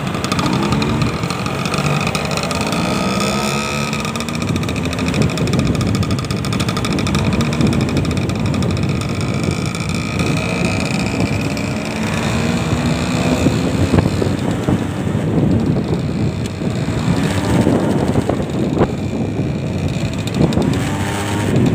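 Motorcycle engine running while riding, its pitch rising and falling with the throttle over steady road noise.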